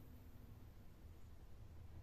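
Near silence with a low hum: the last of a synthesizer note's tail fades out in the first moment.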